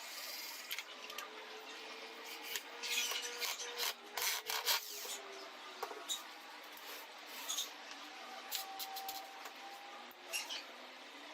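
Irregular rubbing and scraping on wood, with scattered light knocks, loudest about three to five seconds in.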